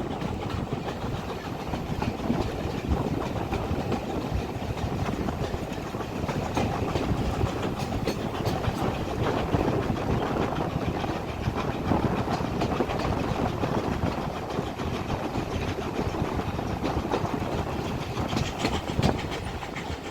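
Steam-hauled heritage train running along the line: the steady rumble and clatter of carriage wheels on the rails, with a continuous clickety-clack.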